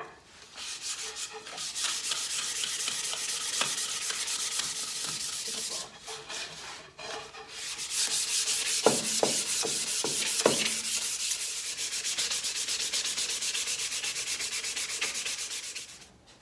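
Sandpaper rubbed by hand along wooden table legs in quick, rapid back-and-forth strokes, in two long spells with a short pause near the middle. A few knocks sound early in the second spell.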